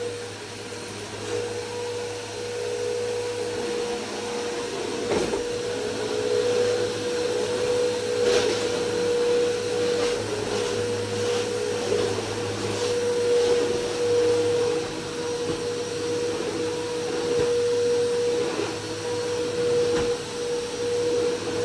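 Vacuum cleaner running steadily with a constant high motor whine, with occasional knocks and rattles as it is pushed about.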